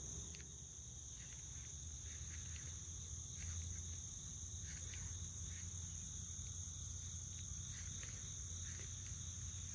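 Chorus of insects in a late-summer meadow: a steady, high-pitched, unbroken drone, with a low rumble underneath.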